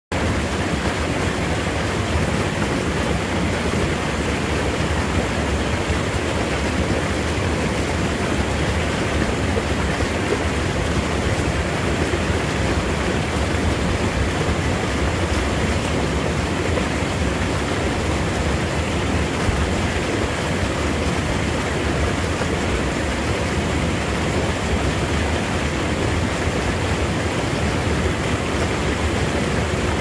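Small mountain stream pouring over a low rocky cascade: a steady, unbroken rush of water.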